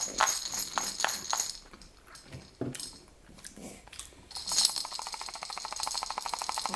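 A jingling baby rattle shaken in bursts: a run of jingles at the start, a pause, then fast, even shaking from about halfway through.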